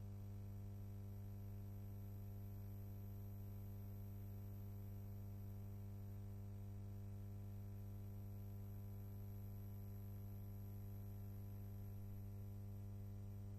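Steady low electrical hum with a buzz of evenly spaced overtones and a faint hiss, with nothing else happening: the empty soundtrack of a silent archive film transfer.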